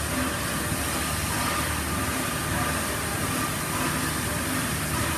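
Victorian Railways R class steam locomotive R761, standing with steam escaping around its cylinders and wheels: a steady hiss over a low rumble.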